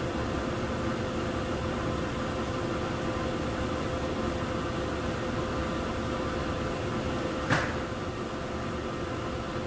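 Jet dyeing machines running with a steady hum and a constant tone. A single sharp knock comes about three-quarters of the way through.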